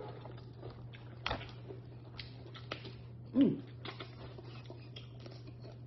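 Eating boiled lobster legs: scattered soft clicks and mouth sounds over a steady low hum, with a short hummed 'mm' about three and a half seconds in.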